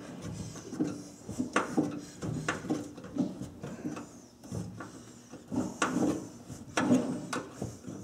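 Wrench turning a freshly loosened mounting bolt out of an over-the-range microwave's metal bracket: irregular metal clicks, knocks and scraping.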